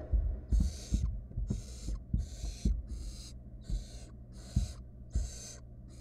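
Barn owl nestlings giving rasping, hissing begging calls, repeated about one and a half times a second, over dull knocks and scuffles as the owlets shift about on the wood-chip floor of the nest box.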